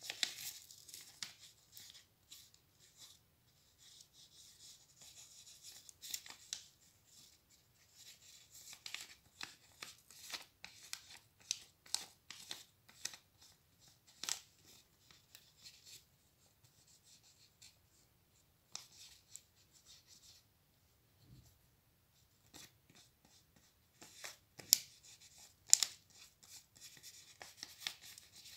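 Paper card rustling and crackling as it is handled and glue is spread over it with a squeeze bottle's applicator tip: irregular scraping and crinkling, with two louder sharp clicks near the end.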